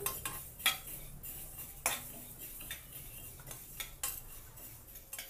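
A metal spatula scraping and clicking against a steel kadai as sesame seeds are stirred while dry-roasting, in irregular strokes with a few sharper knocks.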